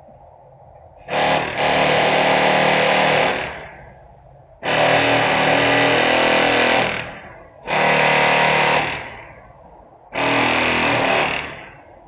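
Loud pitched industrial noise in four blasts, each starting abruptly and holding steady before cutting off: two long ones of about two and a half seconds, then two shorter ones of just over a second.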